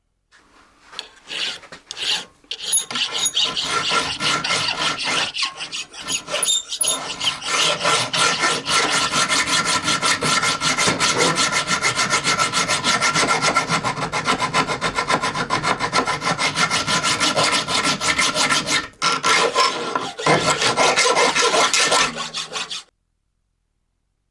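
Hand file rasping over a steel flint striker forged from an old file, in quick, even strokes with a faint steady ring under them. There are a few short pauses, and the filing stops shortly before the end.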